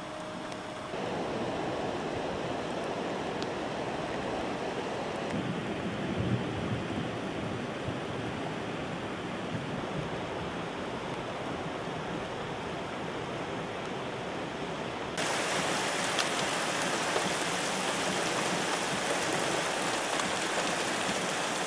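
Rushing floodwater and rain: a steady hiss of water that changes abruptly twice, about a second in and about two-thirds of the way through, the last stretch louder and hissier.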